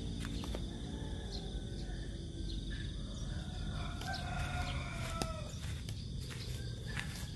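Insects chirring steadily in a high, even tone. Partway through, a drawn-out bird call rises and falls over it for a couple of seconds.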